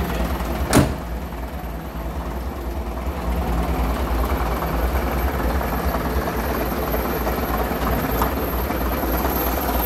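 Leyland diesel bus engines idling steadily, a low even rumble that dips slightly and then grows louder from about three seconds in. A single sharp knock about a second in.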